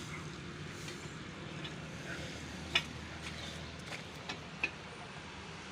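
A few short, sharp knocks over a steady low background hum, the loudest about halfway through.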